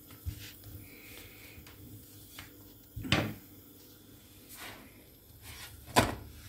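Two sharp kitchen knocks over quiet handling: a long thin wooden rolling stick (oklava) set down on the counter about three seconds in, then a louder knock near the end as the frying pan on the stove is handled.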